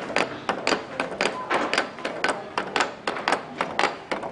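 A wooden gravity toy: a small wooden figure clacks its way down a notched wooden double-rail ramp, wood knocking on wood at each notch, about four clacks a second.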